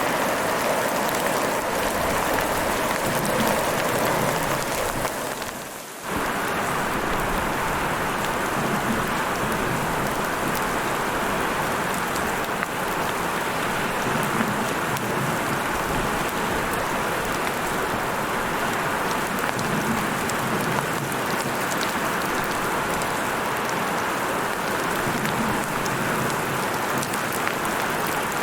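Heavy rain falling: a steady, dense hiss with many fine drop ticks. It fades briefly about six seconds in, then comes straight back at full strength.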